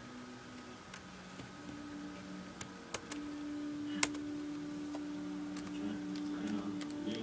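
A few scattered sharp clicks of computer keys and a mouse while a search is made, over a low steady hum.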